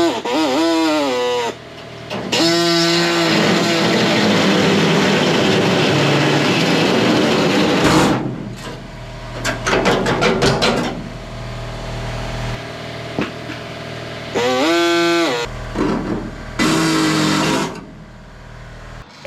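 A power cutting tool cutting out rusted sheet metal. It spins up and winds down in short bursts, cuts steadily for several seconds, and gives a run of rapid sharp ticks around the middle.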